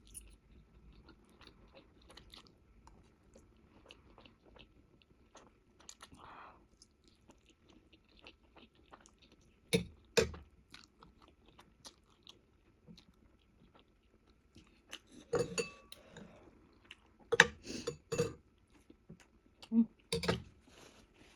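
Close-up chewing of spicy ramen noodles, with many small wet mouth clicks. A few louder sharp sounds come about halfway through and in a cluster near the end.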